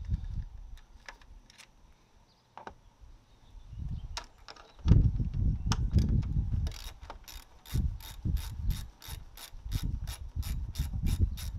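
Ratchet wrench clicking as it turns a 10 mm bolt. Scattered clicks at first, then an even run of about three or four clicks a second through the second half, over low thumps.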